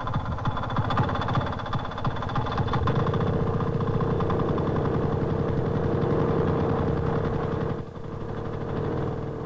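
A small engine running steadily, with a fast, even beat of firing strokes. It drops in level about eight seconds in.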